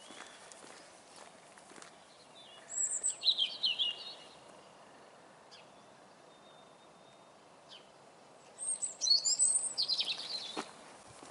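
A small songbird singing two short phrases of fast, high, twittering notes, about two and a half seconds in and again near the end, over faint steady outdoor background noise.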